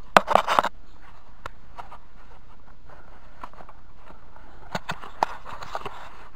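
Hand work at a tractor's transmission drain plug: a short burst of scraping and knocking in the first second, then a few sharp clicks and light rubbing near the end.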